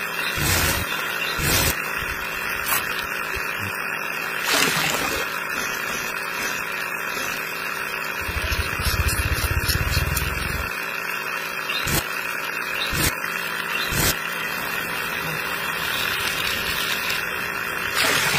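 Small electric motor of a miniature cement mixer running steadily, turning the gear-ringed drum with a continuous whir. Short knocks come now and then, with a low rumble about eight to ten seconds in.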